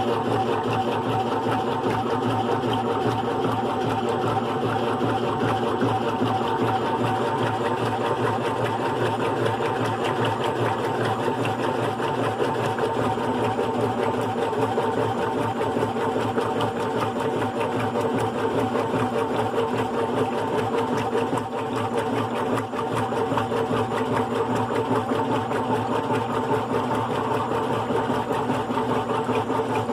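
GE Profile top-load washing machine running steadily with a continuous motor hum, driven by its single-speed motor.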